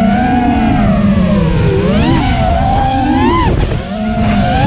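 The four Xing Camo 2208 2450KV brushless motors and propellers of a 5-inch FPV freestyle quadcopter, heard from the onboard camera, whining as the throttle changes. The pitch surges upward about two and three seconds in, briefly drops and eases off just before the end, then climbs again.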